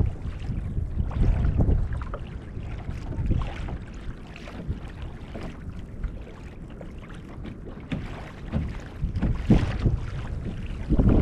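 Wind buffeting the microphone in uneven gusts over water slapping and washing against the hull of a Hobie Outback kayak sailing through light chop.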